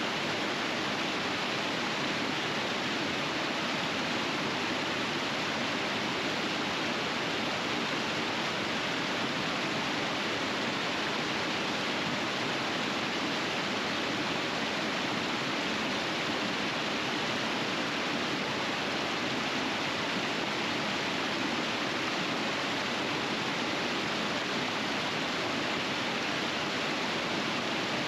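River rapids rushing steadily, an even wash of water noise.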